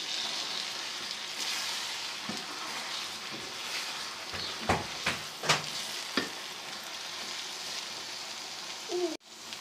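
Chicken with spices and ginger-garlic paste sizzling in oil on a low flame as the masala is fried. A spoon scrapes and stirs the pan a few times in the middle, and the sizzle breaks off abruptly near the end.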